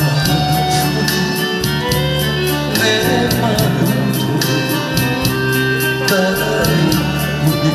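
Trot song backing track playing through stage speakers, with a steady drum beat and a sustained bass line.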